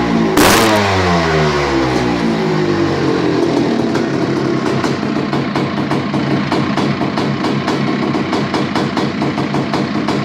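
Freshly rebuilt Husqvarna 430 single-cylinder two-stroke dirt bike engine, blipped once just after the start and falling back from the rev, then idling steadily with an even run of pops.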